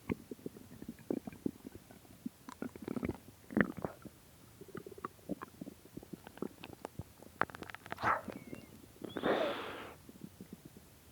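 An empty stomach growling: a run of irregular small gurgles and pops, the sharpest a bit over three seconds in, and a longer gurgling rumble of about a second near the end. It is hunger rumbling after roughly three days without food.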